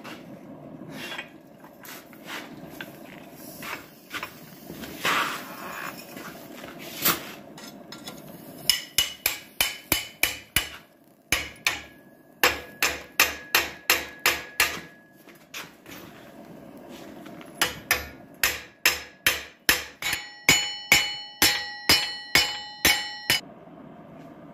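Blacksmith's hammer striking steel on an anvil while forging a coal rake, in quick runs of rhythmic blows with short pauses between runs. In the last few seconds the anvil rings with clear tones between the blows. The first several seconds hold only scattered knocks and scraping.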